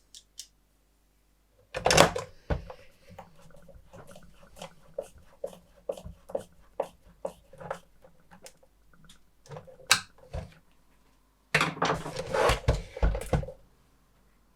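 Clicks, knocks and clatter of an oscilloscope's case and parts being handled and fitted together during reassembly. There are louder clunks about two seconds in and near ten seconds, and a busier burst of clattering a little before the end.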